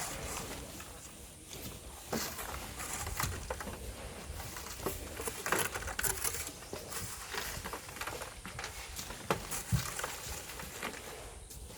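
Irregular knocks, scrapes and pattering of hand digging in volcanic black sand and stones.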